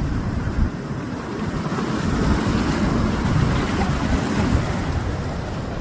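Sea waves washing against a rocky shore, with wind rumbling on the microphone; the surf swells about two seconds in and eases again before the end.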